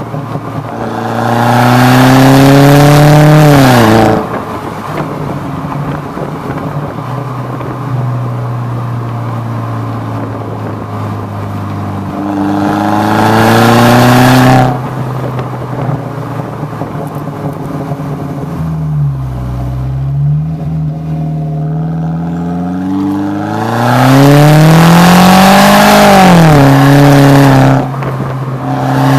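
Exhaust of a 2004 Audi A4 1.8T's turbocharged four-cylinder engine through a Stasis cat-back system, heard at the tailpipe while driving. It runs at a steady low drone and three times surges much louder with the pitch climbing as the car accelerates hard, each pull cutting off suddenly as the throttle closes.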